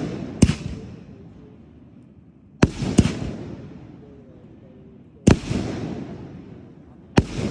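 Firework shells bursting overhead: five sharp bangs, two of them close together in the middle. Each is followed by a long echoing rumble that fades away.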